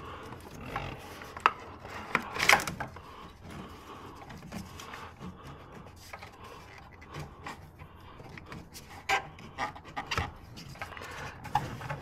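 Hands working a rubber hose and plastic clips in an engine bay: rubbing and rustling with scattered clicks and knocks, the loudest a little over two seconds in.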